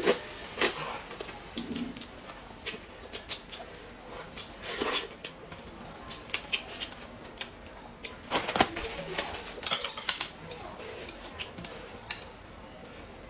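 Scattered light clinks and taps of chopsticks and dishware against a metal serving platter as noodles and steamed buns are handled, with mouth sounds of eating; a quick run of clinks comes about eight to ten seconds in.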